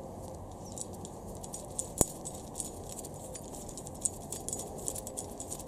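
Light metallic clicks and clinks of a bolt and washer being fitted and threaded by hand into a Honda B18C4 camshaft gear, with one sharper click about two seconds in.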